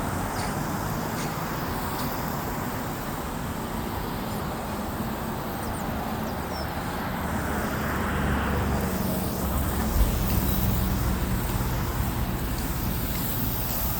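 An engine running steadily with a low hum, growing a little louder in the second half, with a single knock about ten seconds in.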